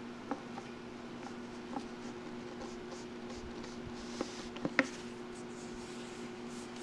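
Paper rubbing and scraping as a poster's edge is worked along a plastic poster-hanger rail, with a few small sharp clicks and taps of the plastic, the loudest a little under five seconds in. A steady low hum runs underneath.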